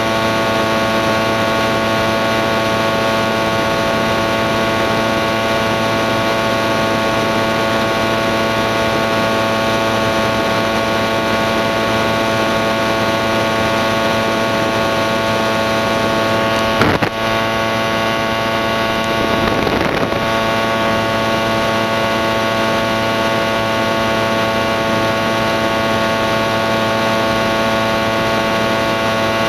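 Doodlebug powered hang glider's small two-stroke engine and propeller running steadily in cruising flight, one unchanging drone. A single sharp knock comes a little past halfway, and a brief rustling disturbance a few seconds later.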